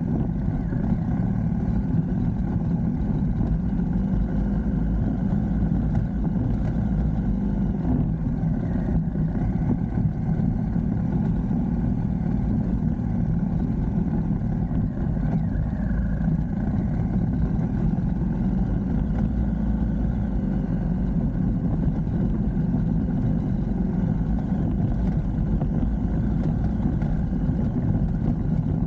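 A vehicle's engine running steadily while driving, with a constant low rumble and no change in pace.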